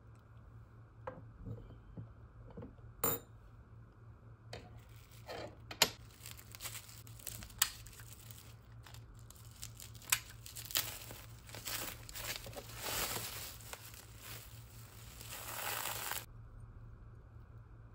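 Plastic bubble wrap crinkling and tearing as it is slit with a box cutter and pulled off a glass cup, with a few sharp clicks along the way; the crinkling gets denser and louder in the second half.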